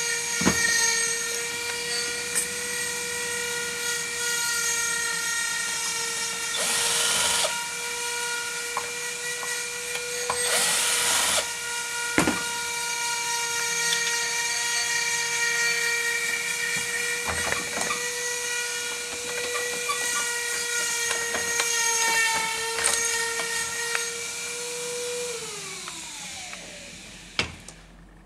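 An electric motor running with a steady whine, then winding down in pitch and stopping near the end. Two short hissing bursts and a few sharp clicks of handled metal parts come over it.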